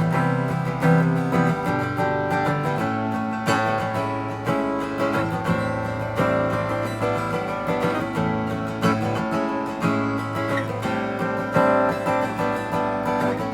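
Instrumental break in a live song: acoustic guitar strumming steady chords over a sustained low bass line.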